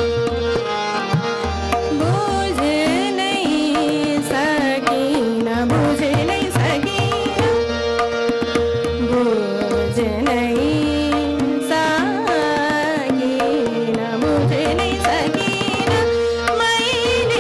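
Hindustani classical vocal music in raga Rageshree: a woman's voice singing gliding, ornamented phrases over a steady tanpura drone, with harmonium following the melody and tabla keeping up a continuous rhythm with deep bayan strokes.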